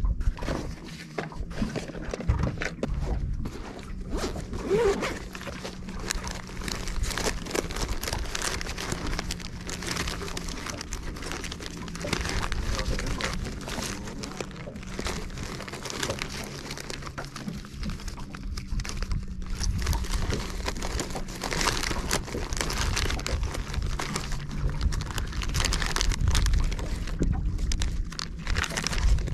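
Fishing reel being wound to retrieve a lure: a fast, continuous rattling from the reel's gears, with a low steady hum underneath.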